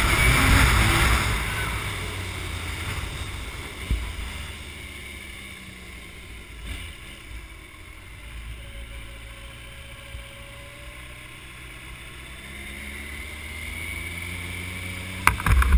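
A Kawasaki ZX-14's inline-four engine running while riding, under wind noise on the microphone. It is loud at first, eases off through the middle and picks up again near the end, with a single thump about four seconds in.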